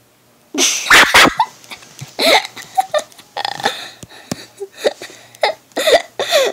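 A boy laughing hard in loud, breathless bursts that break out about half a second in and keep coming in fits through the rest.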